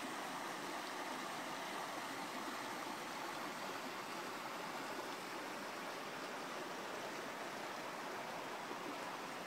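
Steady rush of a small creek's water flowing over a shallow riffle.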